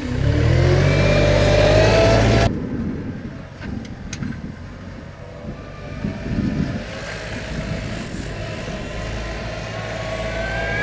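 Hitachi ZW40 wheel loader's diesel engine running close by and revving up with a rising whine. The sound drops suddenly about two and a half seconds in, and the engine is then heard farther off, growing louder near the end as the loader comes closer pushing snow.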